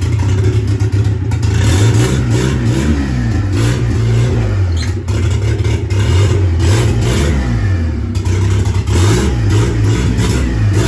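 Turbocharged Chevrolet Corsa pickup's engine running on the move, its pitch rising and falling several times as it revs up and drops back.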